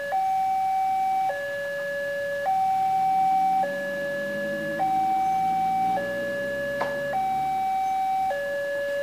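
Railway level-crossing warning alarm from the crossing's horn loudspeaker: an electronic two-tone signal switching between a higher and a lower note a little over once a second, warning that a train is coming as the barrier closes. A low rumble swells and fades in the middle.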